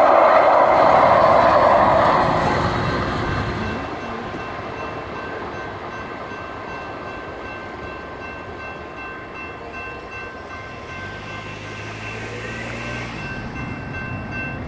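A light rail train passing over the crossing, loud for the first three seconds or so and then fading away. Electronic crossing bells ring steadily throughout. A car engine is heard briefly near the end.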